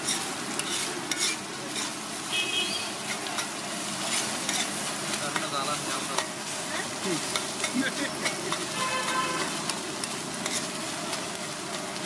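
Metal spatula scraping and clattering rapidly on a large flat griddle (tawa) as a heap of scrambled egg is chopped and turned, over a steady sizzle of frying.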